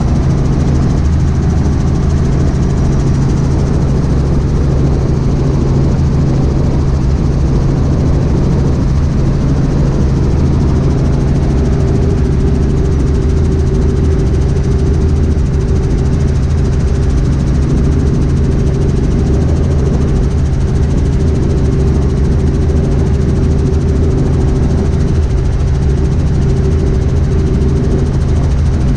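Robinson R44 helicopter in cruising flight, heard from inside the cabin: a loud, steady drone of rotors and engine. A higher steady tone joins in about halfway through.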